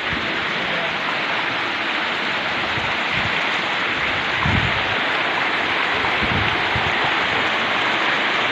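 Steady rushing of flowing water from a mountain stream, with a few soft low thuds about midway.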